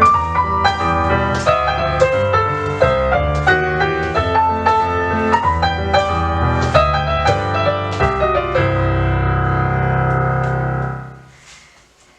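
Piano music for dance movement: a run of notes that ends on a held chord, which rings on and fades away about three seconds before the end.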